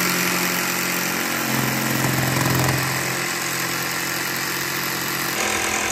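Ryobi cordless jigsaw cutting a notch in a beadboard panel, its motor and reciprocating blade running steadily. The pitch dips for about a second around two seconds in as the blade bites.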